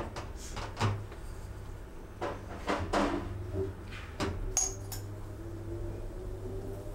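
Metal spoon scraping and clinking against a small glass jar while granules are scooped out, giving a series of light clicks and knocks and one brief glassy ring about two-thirds of the way through.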